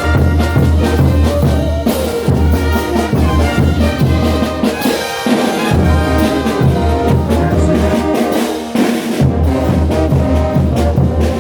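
Bolivian brass band playing carnival dance music: trumpets and trombones over a strong low brass bass line, with drums keeping a steady beat.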